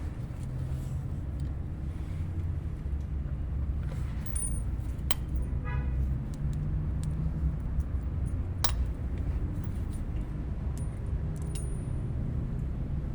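A car engine running steadily with a low hum, overlaid by a few sharp clicks or knocks, one about five seconds in followed by a brief rattle and a louder one near nine seconds.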